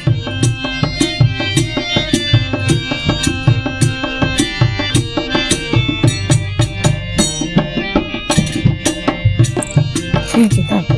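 Instrumental music interlude: hand-drum strokes in a steady rhythm under sustained melodic instrument notes, with no singing.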